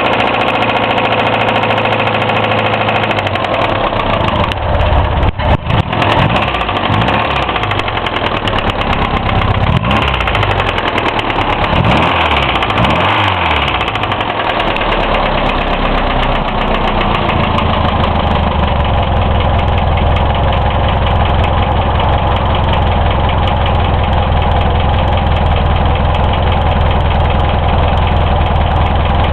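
Hillman Imp's all-aluminium overhead-cam four-cylinder engine running with a really bad, rapid knocking, revved up and down a few times in the first half and then settling to a steady idle. The engine is freshly rebuilt with bearings, tappet clearances and oil level all checked as fine, so the cause of the knock is unknown.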